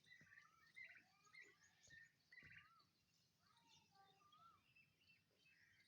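Young turkeys, about two months old, calling faintly with many short peeps and chirps, some of them whistled notes that rise and fall, overlapping one another.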